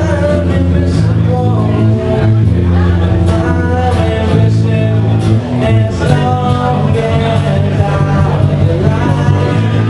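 Live band playing loudly: acoustic and electric guitars over held bass notes, with a voice singing over them.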